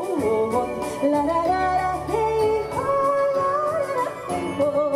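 Woman singing a ballad live over instrumental accompaniment, her voice holding notes and sliding between them.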